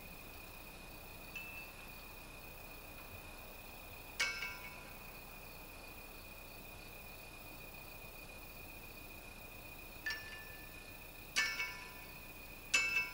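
Bell-like ringing strikes at uneven intervals, each struck once and ringing out with several tones: one faint, one about four seconds in, and three closer together near the end. A steady high tone holds underneath.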